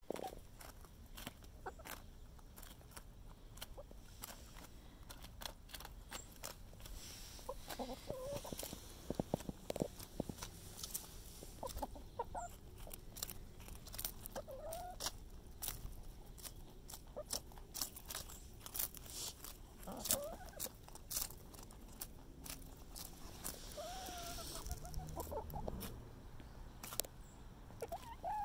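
Backyard hens clucking every few seconds, short low calls over a steady run of sharp clicks and crunches as they peck and tear at a head of napa cabbage held out by hand.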